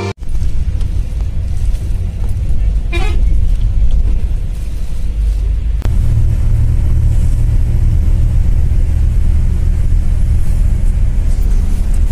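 Steady low rumble of an A/C sleeper coach bus heard from inside the cabin, engine and road noise of the bus on the move. A short horn toot sounds about three seconds in, and there is a single click a few seconds later.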